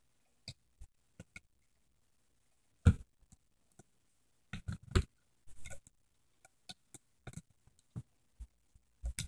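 Scattered short clicks and taps of a plastic loom hook and rubber bands against the loom's plastic pegs as bands are looped up the pegs, the loudest knocks about three and five seconds in.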